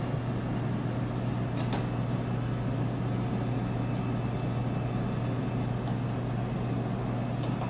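Steady low hum and whoosh of commercial kitchen ventilation running, with two faint light clicks, one about two seconds in and one about four seconds in.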